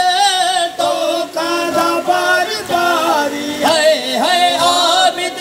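A solo voice chanting a noha, a Muharram mourning lament, in long, high phrases with a wavering pitch and short breaks between them.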